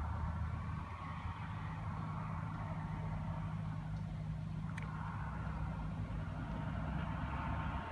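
John Deere tractor's diesel engine running steadily under load as it pulls a Claas four-rotor rake rowing up cut grass for silage.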